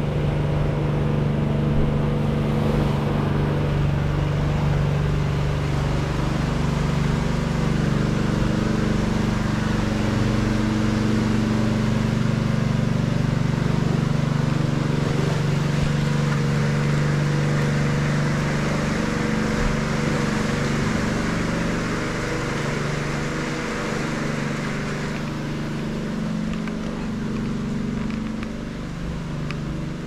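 A boat engine running at a steady pitch, growing a little quieter near the end.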